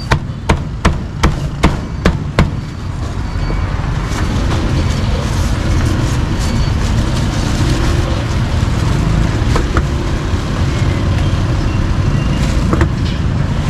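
Cleaver chopping grilled duck on a thick round wooden chopping block: seven sharp chops, about two or three a second, over the first two and a half seconds. After that, a steady low rumble of street traffic.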